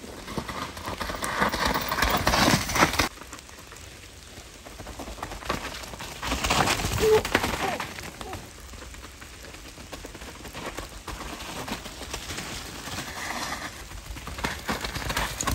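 Downhill mountain bikes passing close on a wet, muddy forest trail, their tyres skidding and tearing through mud and leaves. Three passes of a couple of seconds each; the first cuts off suddenly.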